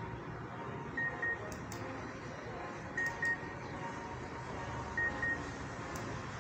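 Small electronic buzzer on an Arduino P10 LED clock's controller board giving short high double beeps, one pair every two seconds.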